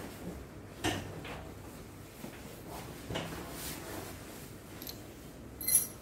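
Rustling and a few soft knocks as a patient is turned onto his side on a padded treatment table for a side-lying lumbar adjustment, with one short, sharp crack near the end.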